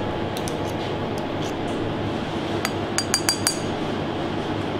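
A metal spoon clinking against a bowl several times in quick succession while carrot purée is spooned in, over steady kitchen background noise.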